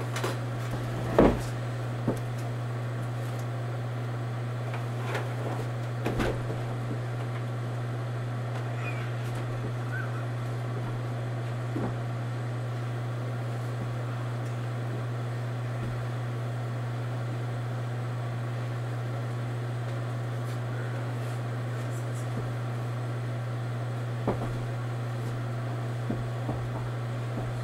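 A steady low hum with scattered knocks and clunks, the loudest about a second in.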